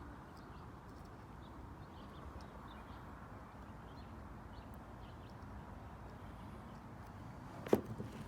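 Faint steady outdoor background noise with scattered small high ticks and chirps, then one sharp click near the end.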